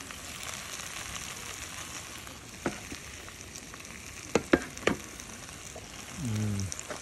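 Roast pork and vegetables sizzling in an aluminium pot just uncovered, a steady hiss. There is one sharp knock a little before the middle and three quick knocks soon after.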